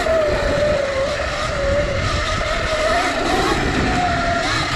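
CZEM Drill One electric dirt bike's motor whining under way, its pitch wavering up and down with the throttle, over a steady rush of wind and trail noise.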